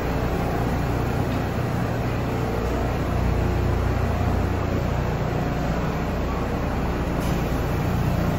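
Steady low rumble and hum inside an R160B subway train.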